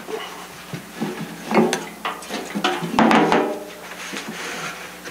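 Workbench handling noise: a paper towel rubbed over a balsa wing joint to wipe off excess glue, with scattered light knocks of the wing and small parts against the bench.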